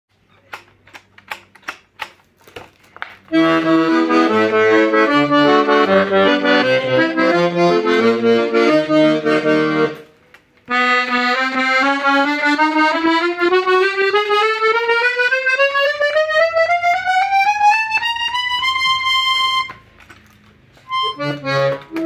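Hohner Concerto I piano accordion sounding in a playing test. About a dozen quick clicks come first, then a tune of treble chords over bass-button accompaniment. After a short break comes a long rising run up the treble keyboard ending on a held note, and chords and bass start again near the end.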